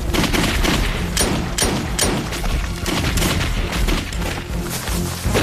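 A fusillade of gunfire: many shots in rapid succession that start suddenly and keep up throughout, with a few sharper cracks standing out.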